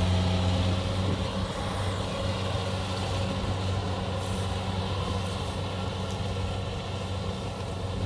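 Kubota DC70 combine harvester's diesel engine running steadily under load while it cuts and threshes rice, a continuous drone with mechanical rattle; a low hum in it eases off about a second in.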